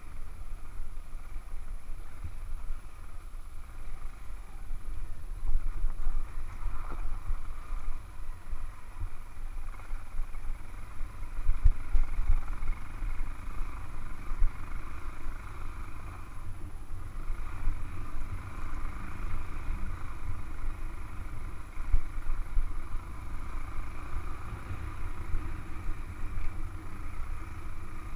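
Motorcycle riding along a rough dirt track, heard mostly as low wind rumble on the microphone that swells in irregular gusts, with the bike's running drone fainter underneath.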